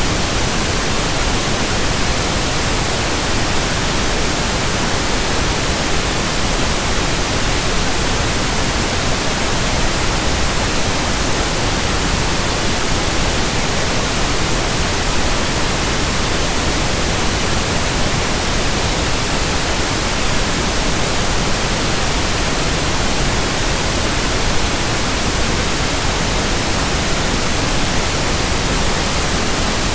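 Steady synthetic pink noise: an unchanging, even hiss with no breaks or events.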